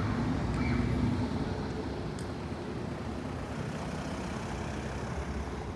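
Car driving slowly across a cobblestone street, engine and tyre rumble over steady town-street background noise.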